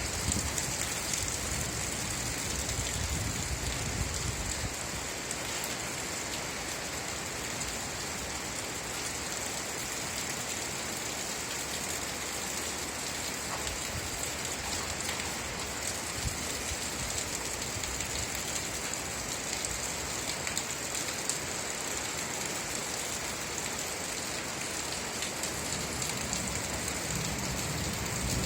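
Steady rain falling, an even hiss with scattered drop ticks. A low rumble underneath dies away in the first few seconds.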